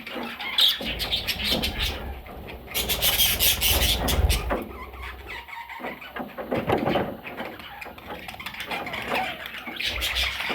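Parrots squawking and screeching, mixed with many sharp clicks and scuffling noises.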